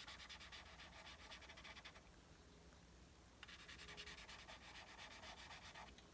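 Faint scratching of a red coloured pencil on black pastel paper in a quick run of short strokes. The strokes stop for about a second and a half two seconds in, then resume.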